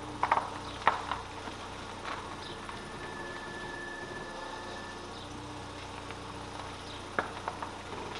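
Audi A3 1.6 engine idling with a steady hum and a higher whine that stops and starts, with a few sharp clicks and knocks near the start and again near the end.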